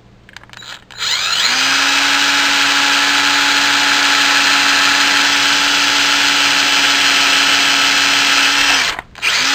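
Cordless drill spinning up about a second in and running at a steady whine as its bit bores into a block of wood, then stopping near the end.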